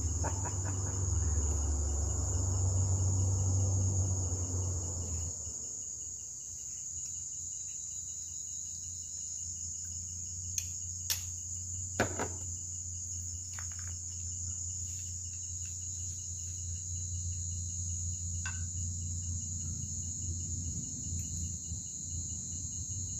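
A steady chorus of night insects, a continuous high trill. A low rumble fades out after about five seconds, and a few sharp clicks come near the middle.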